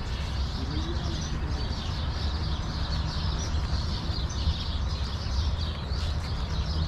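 Many small birds chirping continuously in a date palm grove, over a steady low rumble.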